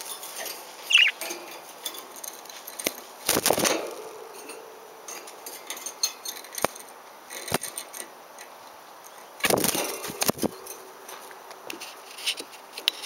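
A pet parakeet gives one short, high chirp about a second in. Two longer bursts of rustling noise and a few sharp clicks come later.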